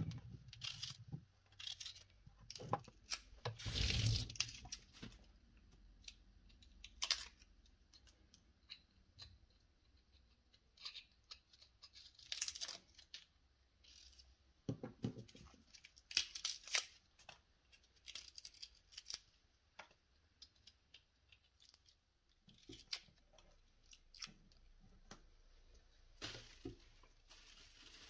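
Scattered brief rustles, scrapes and clicks of food being handled, with near-silent gaps between them. The loudest bursts come about four, seven, twelve and a half and sixteen and a half seconds in.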